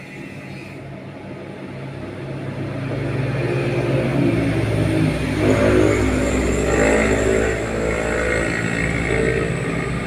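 A motor vehicle's engine passing nearby, growing louder from about three seconds in, loudest around the middle, then easing off.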